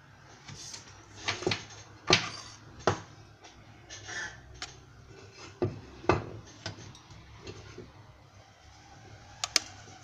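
Irregular clicks and knocks of small hard objects being handled and set down on a hard surface, a dozen or so at uneven intervals with a sharp double click near the end, over a steady low hum.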